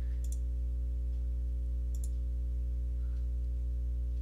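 Steady low electrical hum from the recording setup, with a few faint computer mouse clicks, one near the start and one about two seconds in.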